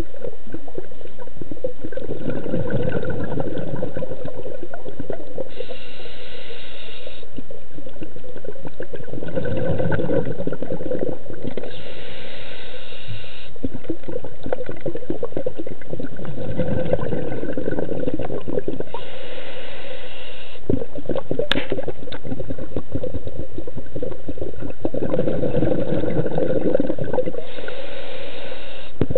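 Scuba diver breathing through a regulator underwater, four breaths: each a short hiss of inhalation followed by a longer, gurgling rush of exhaled bubbles, about every seven seconds. A single sharp click comes about two-thirds of the way through.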